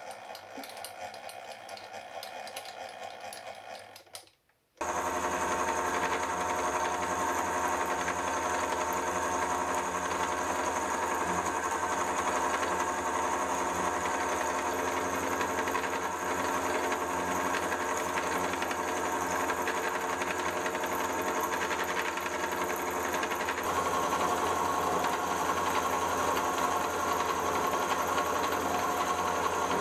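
Vertical milling machine running steadily, its dovetail cutter cutting into a mild steel block: a constant motor and spindle whine over the noise of the cut. The first few seconds are quieter and drop almost to nothing about four and a half seconds in, before the steady milling sound starts.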